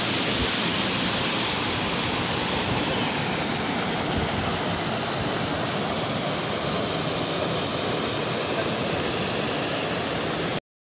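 River water rushing over boulders and small rapids, a steady rush that cuts off suddenly near the end.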